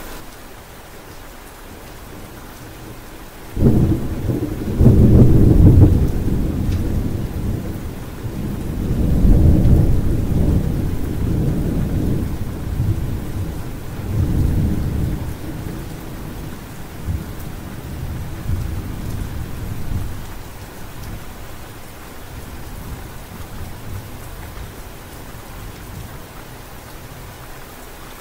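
Thunder over steady rain: a sudden clap about three and a half seconds in, then a deep rolling rumble that swells twice more and dies away over about fifteen seconds.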